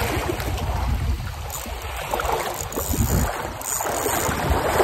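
Small waves lapping and sloshing in shallow water at the shore, with wind buffeting the microphone as a low rumble.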